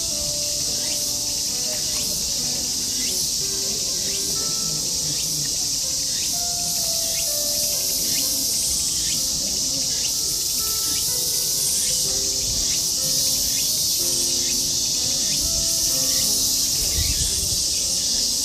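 Many wind chimes (fūrin) tinkling at scattered moments, short ringing notes at many different pitches, over a steady high-pitched insect chorus.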